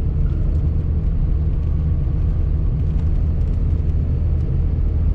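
Steady low rumble of engine and road noise, heard from inside the cab of a vehicle driving on a snow-covered road.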